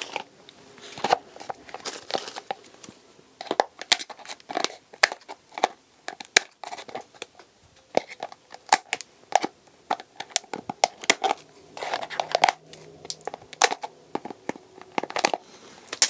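Thin 32-ounce clear plastic cup crinkling and crackling in irregular sharp clicks as its hole is worked bigger.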